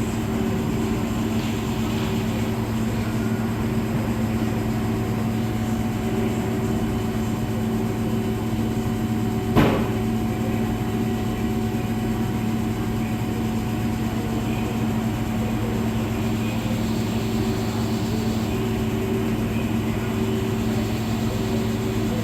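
Electrolux Professional WN6-14 commercial washing machines in their high-speed extract spin near the end of the cycle, a steady low hum. One sharp click about ten seconds in.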